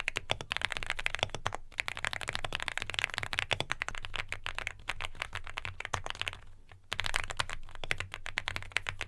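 Typing on a custom mechanical keyboard fitted with new keycaps: a rapid, dense run of key clacks, with a brief pause about six and a half seconds in.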